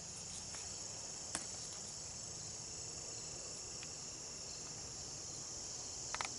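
Steady high-pitched insect chorus droning without a break, with a single sharp click a little over a second in and a few small clicks near the end.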